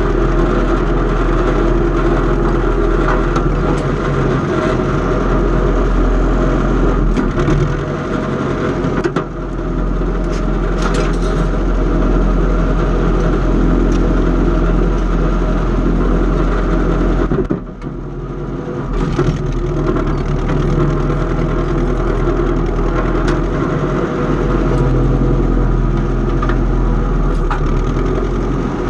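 Engine of antique farm equipment running steadily while turning soil. Its sound dips briefly about nine seconds in and again around eighteen seconds.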